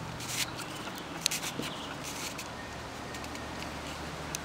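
Light, irregular clicking and rattling from a 3D-printed gear cube puzzle as its faces and gears are turned by hand. The loudest cluster of clicks comes about a second in.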